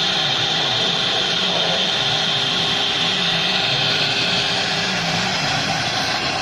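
CNC cutting machine running: a steady, loud hiss with a strong high-pitched band over a wavering low hum.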